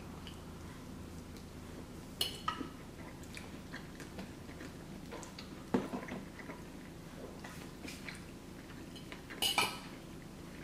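Metal fork clinking and scraping against a glass baking dish of pasta a few times, loudest near the end, with soft chewing in between.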